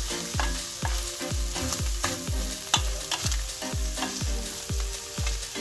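Chopped meat sizzling in a stainless steel pot as a wooden spatula stirs it, with an even rhythm of low knocks about three a second and scattered clicks.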